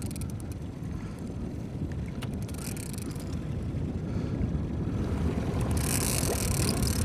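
Boat motor running steadily, with wind on the microphone, slowly growing louder, and a hiss coming in near the end.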